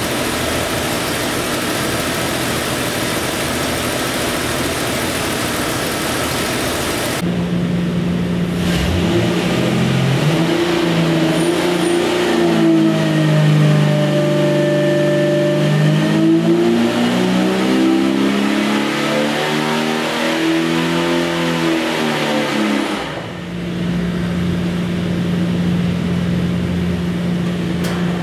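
Jeep 4.6 stroker straight-six running on an engine dyno: it runs loud and steady, then about a third of the way in it is pulled through a sweep that rises in pitch to a peak and falls back down, and settles to a steady drone again near the end.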